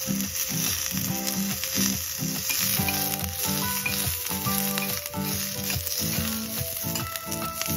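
Green chillies and garlic cloves sizzling steadily on a hot iron tawa as they roast, with a metal spatula turning them, over background music.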